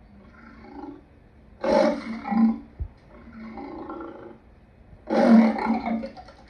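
Lion roaring in a repeated series: two loud roars about three and a half seconds apart, each about a second long, with quieter calls between them.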